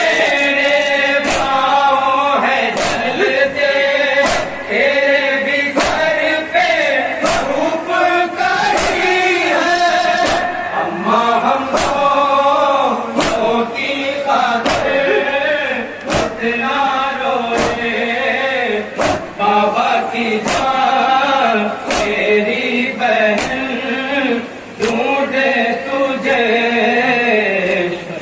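A group of men chanting a noha, an Urdu mourning lament, together, kept in time by the sharp slaps of matam, open hands striking chests roughly every three-quarters of a second.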